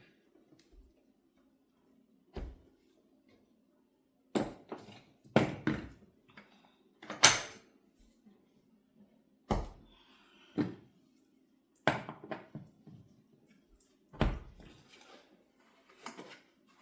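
Wheels being fitted into a folding platform hand truck: a series of separate sharp knocks and clunks, a second or two apart, over a faint steady hum.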